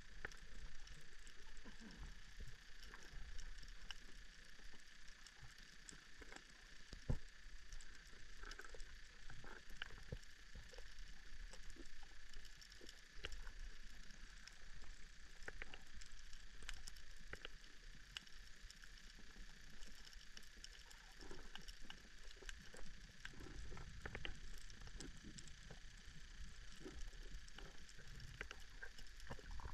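Underwater coral-reef ambience: a faint, irregular crackle of small clicks and pops over a steady hiss, with a few louder knocks and a low rumble a little past the middle.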